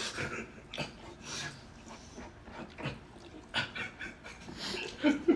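Mouth sounds of a person eating: scattered wet clicks and smacks of chewing, with breathing.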